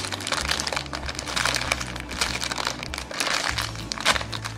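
Clear plastic bag crackling and crinkling as the squishy toy sealed inside it is handled, over background music with steady low bass notes.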